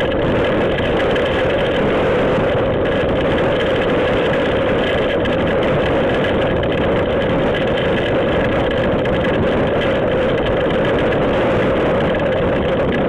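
Storm wind and rain making a steady, dense rumbling noise on a security camera's microphone.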